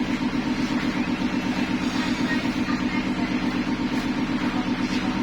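Corn emping processing machinery running steadily: a low, continuous motor hum with a rapid, even pulsing.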